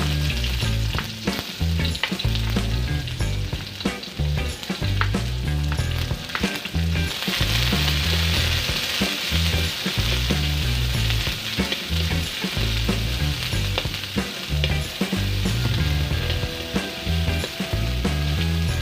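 Chopped onion and garlic sizzling in oil in an aluminium wok while being stirred, the plastic spatula scraping and clicking against the pan. The sizzle grows louder about seven seconds in, with irregular low thumps underneath.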